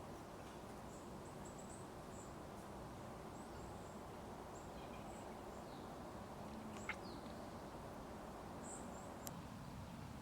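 Outdoor ambience: a steady low rush with scattered short, high chirps, and one sharp click about seven seconds in.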